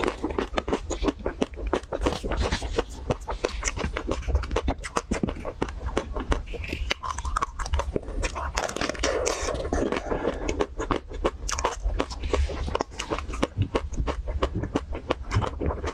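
Close-miked biting and chewing of a crunchy chocolate-coated Magnum ice cream bar, the shell cracking in rapid, irregular crunches amid wet chewing.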